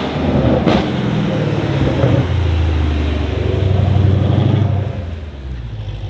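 Mercedes C63 AMG Black Series' 6.2-litre V8 through a loud exhaust. A sharp crack comes about a second in, then a deep, low-revving rumble as the car pulls around a hairpin, easing off near the end.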